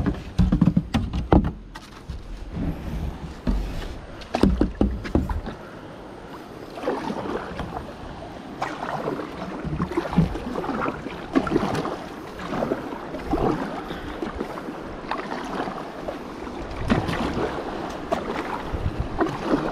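Kayak paddle strokes in river water: irregular splashes and water sloshing, roughly one a second, with knocks and low rumbling on the microphone in the first few seconds.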